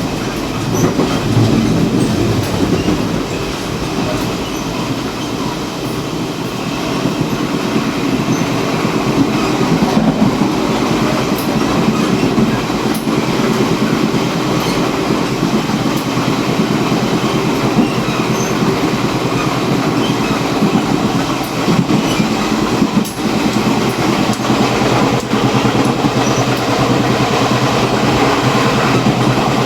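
Taiwan Railways Chu-Kuang Express passenger train running, heard from the gangway connection between a passenger car and the baggage car: a steady loud rumble of wheels on rail with scattered clicks and rattles.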